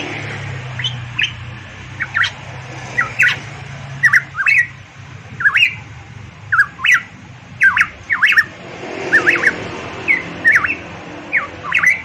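Variable pitohui calling: a long run of short, sharp whistled notes, one or two a second, each sweeping quickly up and down in pitch.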